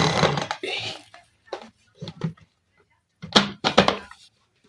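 A loud rushing noise fades out within the first second, then a spoon stirring soup in a cooking pot gives a few short scrapes and knocks.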